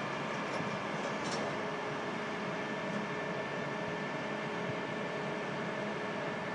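Heavy work machinery running steadily: an unbroken drone with constant whining tones over it. A few faint metallic clinks about a second in.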